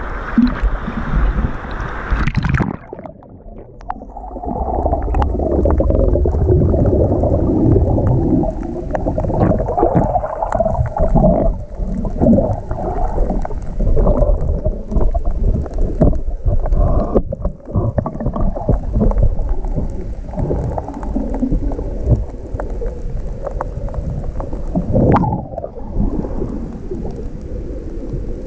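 Rough surf churning and water sloshing, heard muffled from in among the waves.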